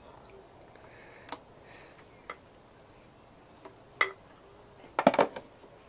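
Injector retaining clips and fuel injectors clicking into a Mini Cooper S R53 fuel rail: a few single sharp clicks, then a quick cluster of clicks about five seconds in, the loudest.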